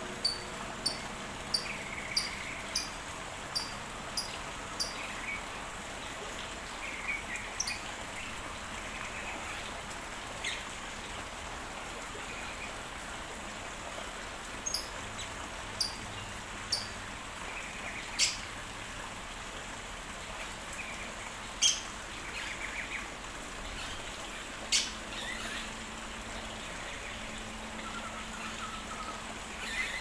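Short, sharp, high-pitched bird calls in an aviary, repeated about every two-thirds of a second for the first few seconds, then scattered single calls and a few softer chirps, over a steady background hiss.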